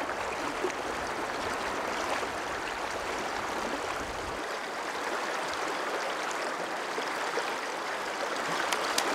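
Steady rushing of river rapids, an even wash of running water. A low rumble underneath cuts off about four seconds in.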